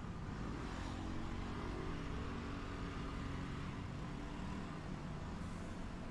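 Street traffic: a motor vehicle's engine running steadily, a low hum over road noise.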